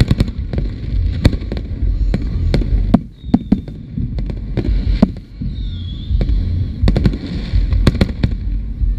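Aerial fireworks shells bursting: an uneven, rapid series of sharp bangs, about two a second, over a low rumble.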